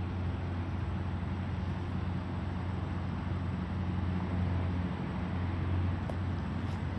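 Diesel engine of a parked tractor-trailer rig running at a steady idle: an even low hum.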